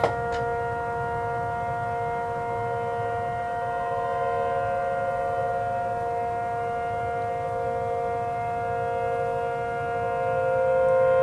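Outdoor tornado warning siren sounding a steady wail: several tones held together at a constant pitch, slowly swelling and easing in loudness.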